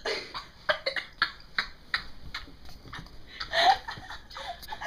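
Laughter in quick short bursts, about three a second, with a louder burst about three and a half seconds in.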